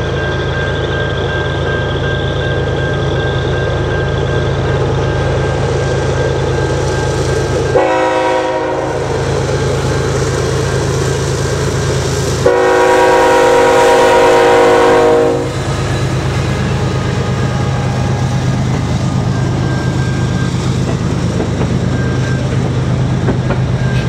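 CN GE ES44DC diesel-electric locomotive approaching and passing at speed, its engine running with a steady low drone, and its multi-chime air horn sounding a short blast about 8 seconds in and a long blast of about three seconds as the locomotive goes by. After it, double-stack container cars roll past with steady wheel and rail noise.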